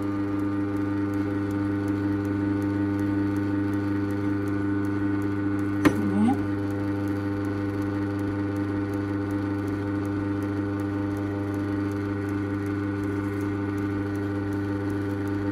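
Ultra wet grinder's motor running steadily, turning the atta kneading attachment through chapati dough, a steady hum. One sharp knock about six seconds in.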